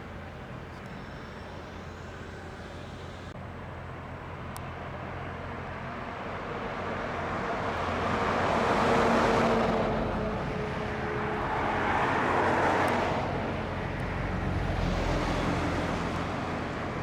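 Road traffic: three cars passing one after another, each rising and fading, the loudest about halfway through, over a steady low traffic hum.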